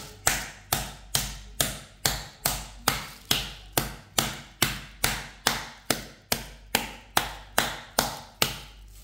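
Metal meat tenderizer mallet pounding a raw chicken on a plastic sheet in a steady rhythm of sharp blows, about two and a half per second, flattening and tenderizing the meat.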